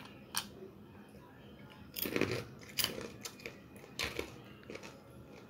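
A person biting and chewing crisp batter-fried masala peanuts: a run of irregular crunches, the loudest about two seconds in.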